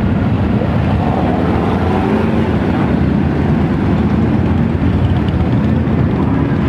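Loud, steady din of many motorcycle engines running at once, with no single bike standing out.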